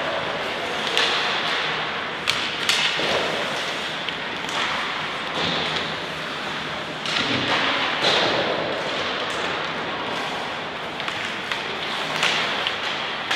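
Irregular thuds and knocks from play during a youth team match, over a steady noisy background.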